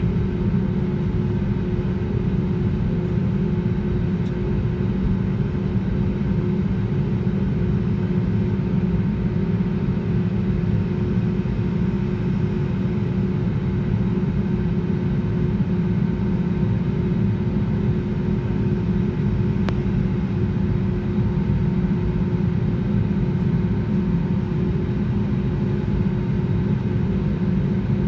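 Cabin noise inside an Airbus A320neo taxiing: a steady engine hum over a low rumble.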